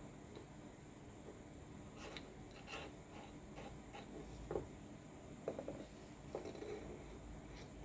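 Faint rubbing with a few light clicks and knocks, as of metal and plastic hammer parts being handled and fitted by hand.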